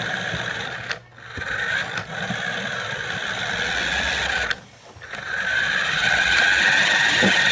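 Small electric motor and drivetrain of an RC car whining steadily as it drives, dropping out briefly twice.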